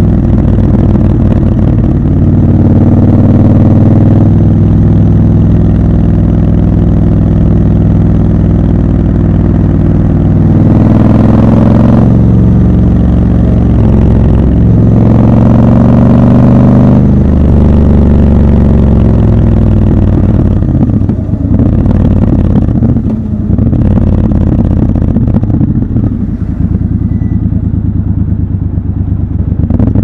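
Triumph Scrambler 1200 XC's parallel-twin engine running loud in city traffic, revving up twice under acceleration around ten and fifteen seconds in. It then eases off to a lower, uneven note as the bike slows toward the end.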